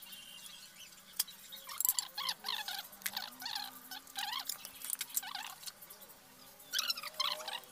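A flat chisel working a small wooden chain link, giving sharp clicks, twice loudly in the first two seconds. Repeated high chirping calls that rise and fall run under it.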